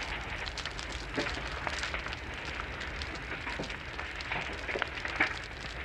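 Outdoor background noise: a steady low rumble under a hiss, scattered with small crackles and ticks.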